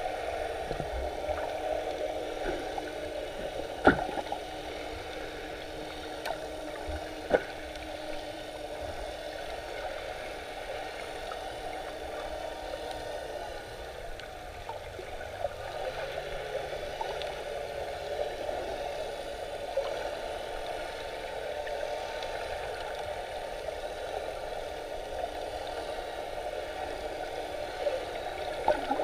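Underwater ambience through a submerged camera: a steady muffled water noise with a faint low hum in the first half. There are a few sharp clicks, the loudest about four seconds in and another about seven seconds in.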